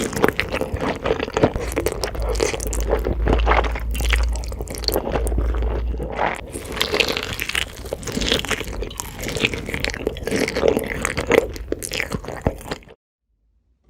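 Close-miked eating sounds: a person biting into and chewing crunchy food, with dense irregular crunches and wet chewing. The sound cuts off abruptly about a second before the end.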